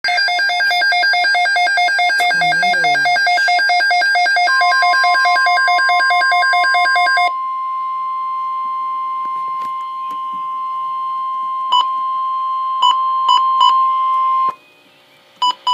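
Emergency Alert System tones: a rapid, chirping burst of data tones for about seven seconds, overlapped from about four seconds in by a steady single-pitch weather-radio alert tone. The steady tone then holds alone until near the end, with a few short beeps over it, and stops suddenly.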